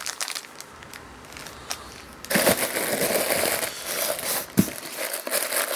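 Packaging being handled and crinkled: faint rustles and small clicks, then, from about two seconds in, a steady loud crinkling and rustling.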